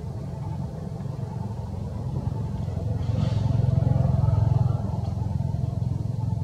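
Low rumble of a motor vehicle's engine, growing louder about three seconds in and easing off again a couple of seconds later.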